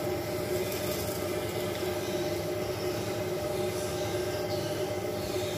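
Mustard seeds sizzling and crackling in hot oil in a steel pan on a gas stove, a steady sizzle with a hum underneath.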